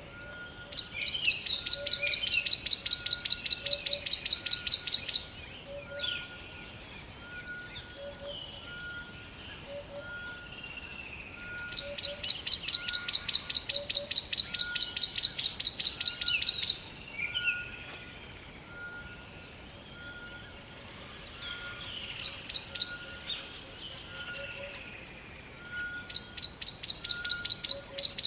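Forest birdsong: a bird gives long, loud runs of rapidly repeated high notes, each run lasting about four to five seconds, three times. Short high chirps from other birds come in between, and a faint lower note repeats steadily about once a second.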